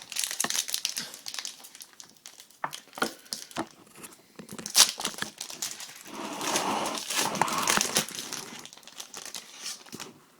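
Trading card pack wrapper crinkling and being torn open, with cards rustling as they are handled, and a sharp snap about five seconds in.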